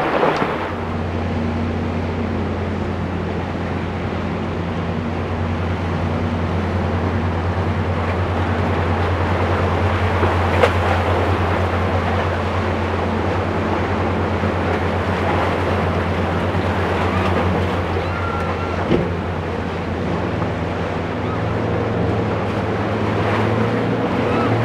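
Boat engines running with a low, steady drone, over wind on the microphone and surf; the engine note rises near the end.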